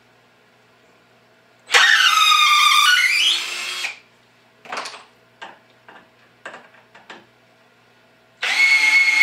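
BLACK+DECKER 20V MAX cordless drill/driver (LDX120C) turning a long drywall screw in a wooden block on its drill setting. It makes two runs of about two seconds each, and in each the motor whine drops in pitch under load and then climbs back. A few short clicks come between the runs.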